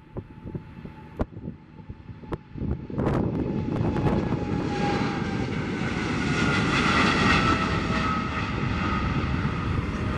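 Boeing 777-300ER's GE90 turbofan engines at high thrust as the jet rolls past on its take-off run. A rising rumble with a jet whine builds from about three seconds in, is loudest a few seconds later, and the whine drops slightly in pitch as the aircraft passes. Wind buffets the microphone in the first few seconds.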